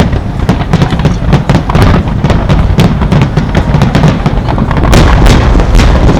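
Fireworks finale barrage: many shells bursting in rapid succession, a continuous low booming with dense crackling on top. A few sharper, louder cracks come near the end.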